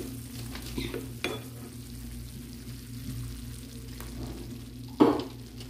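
Wooden spatula stirring tomato curry in a non-stick pan, with water just added to the pan, while the curry sizzles. There are a few light knocks of the spatula on the pan, the loudest about five seconds in.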